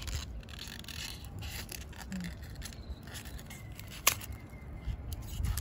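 Hands pressing small pieces of styrofoam in among the dry, woody roots of a bare-root desert rose (adenium): scattered scraping, rustling and crackling, with one sharp click about four seconds in.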